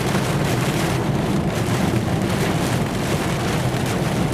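Steady rain and wind noise on a car in a severe thunderstorm, over the car's low running noise.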